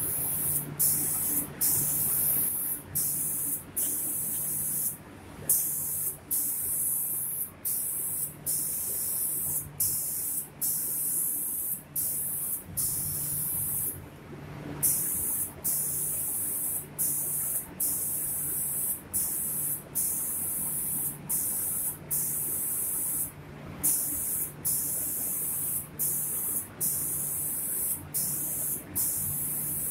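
Automatic spray-painting machine's gantry spray gun hissing as it sprays paint over cabinet doors, the hiss cutting out briefly a little more than once a second. A steady low hum runs underneath.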